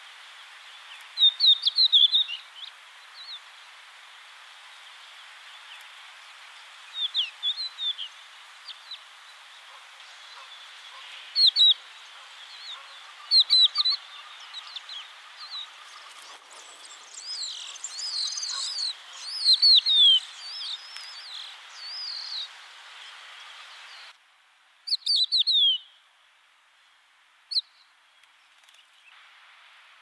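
Crested lark singing: short phrases of clear, sliding whistles every few seconds, with a longer, fuller phrase a little past the middle. A steady background hiss underneath drops out about three-quarters of the way through.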